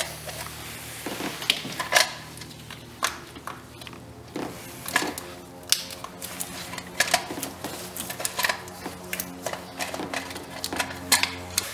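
Scattered light clicks and taps of plastic and metal as gloved hands handle a distributor cap and the ignition wires and cables around it, over a steady low hum.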